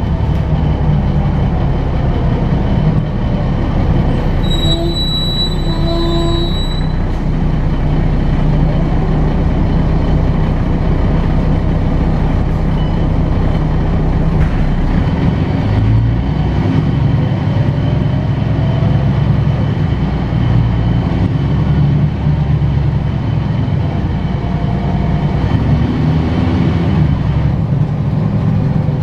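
Articulated city bus under way, heard from inside the passenger cabin: a loud, steady low engine and drivetrain drone whose pitch shifts about halfway through. A short high-pitched tone sounds about five seconds in.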